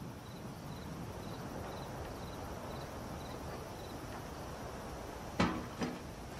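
Faint crickets chirping at an even pace, about two chirps a second, over a quiet night ambience; the chirping fades after about four seconds. Near the end there are two short, louder sounds close together.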